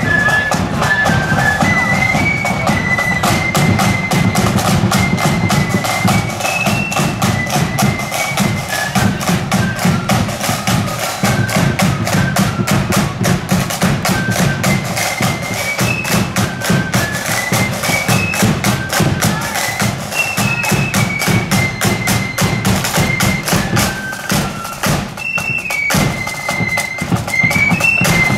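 Marching flute band playing a tune: flutes carry a high stepping melody over a steady, busy beat from side drums and a bass drum.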